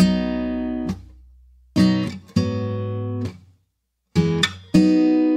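Background music: acoustic guitar strumming chords in short phrases, with brief gaps of near silence between them.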